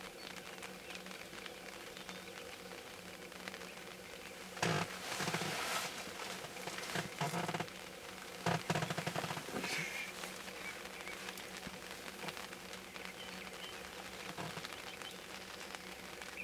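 Sharp-tailed grouse displaying on a lek. Several short bursts of rapid rattling come from the dancing males' stamping feet and vibrating tail feathers, the loudest between about four and ten seconds in.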